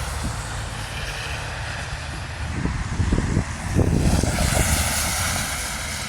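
Wind buffeting the microphone in a ragged low rumble, with a louder rushing swell and a few thumps about halfway through.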